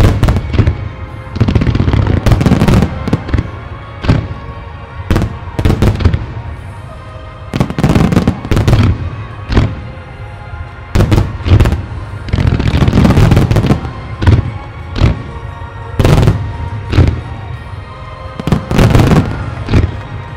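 Aerial fireworks shells bursting one after another, more than a dozen loud booms and crackling bursts at uneven intervals, with music playing underneath.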